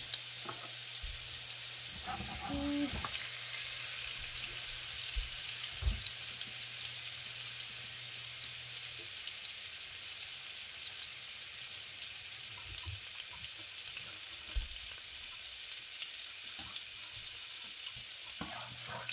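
Butter melting in hot olive oil in a large pan, sizzling steadily. A couple of soft low thumps come about six seconds in and again near fifteen seconds.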